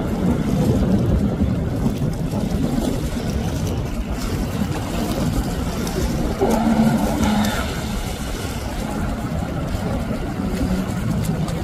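Jet ski engine running as it crosses choppy waves, heard under a steady rumble of water and wind. The engine gets louder for about a second around the middle.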